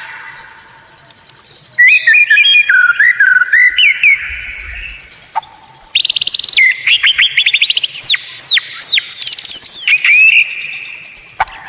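White-rumped shama (murai batu) singing varied, loud phrases of sweeping whistles and rapid trills. Two bursts are separated by short pauses: one pause near the start and one just past the middle.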